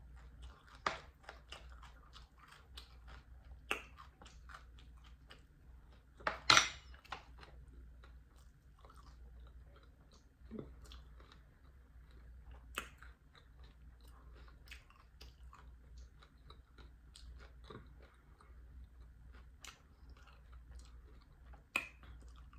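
Close-miked chewing of fried catfish, its crisp breaded coating crunching, with many small scattered mouth clicks. One louder sharp crunch about six and a half seconds in.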